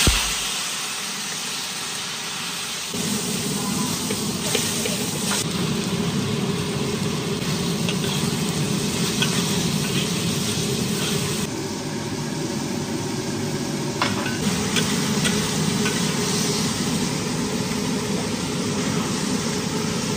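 Stir-frying in a hot wok. Food pours into hot oil with a loud sizzle right at the start, then there is steady sizzling with the spatula scraping and clicking against the wok as it tosses shredded pork and vegetables.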